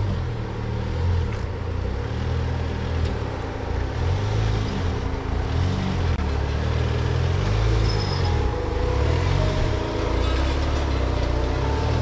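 Off-road 4x4's engine working at low speed, its revs rising and falling repeatedly.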